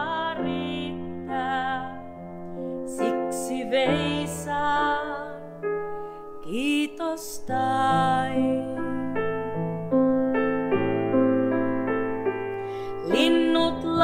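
A grand piano playing a slow, gentle song accompaniment with changing chords, and a woman's voice singing a few held, wavering notes over it now and then.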